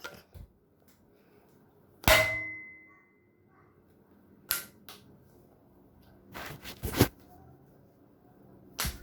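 Spring-powered Nerf dart blaster firing with one sharp snap about two seconds in, followed by several quieter plastic clicks and knocks.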